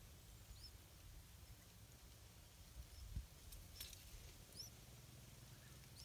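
Faint, short, high-pitched rising bird chirps, one about half a second in and another just after four and a half seconds, with a brief cluster of clicks in the middle over a low rumble.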